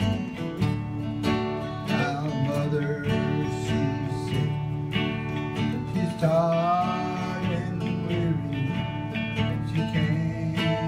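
Two acoustic guitars strumming an old song with no words sung, a wavering melody line coming in about six seconds in.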